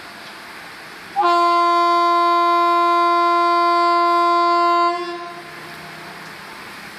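Horn of an approaching Indian Railways electric locomotive sounding one long, steady blast of nearly four seconds, starting about a second in, over the steady hiss of heavy rain.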